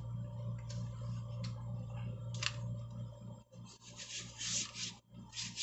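Mother cat licking her newborn kittens, soft rasping strokes of a rough tongue, loudest in two stretches in the second half. A steady low electrical hum runs beneath and cuts off about three and a half seconds in.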